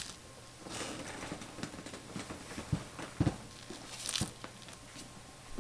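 Kitten wrestling, biting and rolling on carpet: irregular soft rustling and scuffling with a few dull thumps, the loudest a little past three seconds in.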